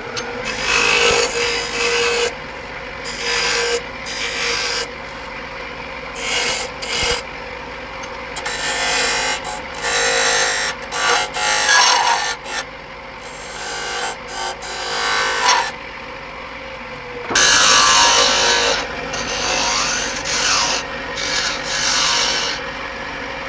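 A 16 mm gouge cutting a spinning oak blank on a wood lathe in repeated shearing passes of a second or two each, over the lathe's steady hum.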